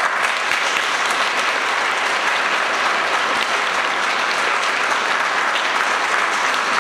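A large seated audience applauding: dense clapping that starts suddenly and holds steady.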